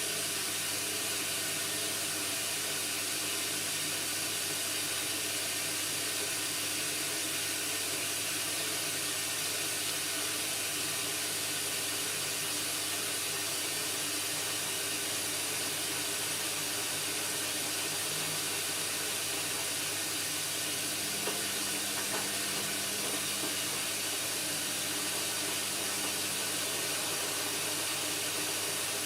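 Indesit washing machine running through its cycle, a steady water-like hiss. A faint low hum joins for several seconds about two-thirds of the way through.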